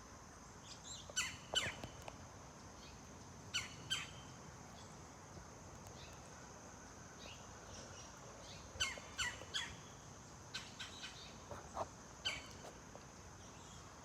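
Wild birds calling outdoors: short, sharp, high-pitched calls in scattered clusters, a pair about a second in, another pair near four seconds, and a run of them from about nine to twelve seconds. A faint steady high tone runs underneath.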